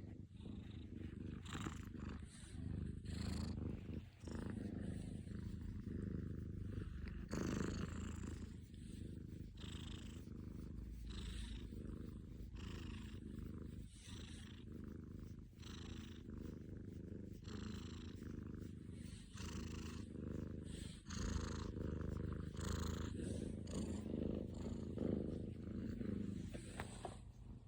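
Sleeping domestic cat snoring: a continuous low rumble that swells and eases with each breath, with a soft airy hiss on the breaths.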